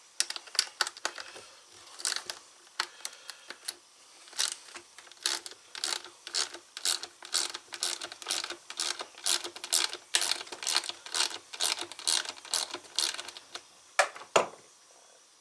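Hand ratchet or ratcheting driver clicking in quick runs of sharp clicks, with short pauses between runs, as screws are backed out of a chainsaw during teardown.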